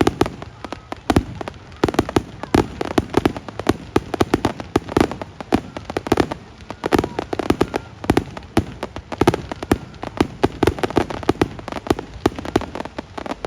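Fireworks display going off in a dense, rapid barrage: many sharp bangs and crackling reports a second.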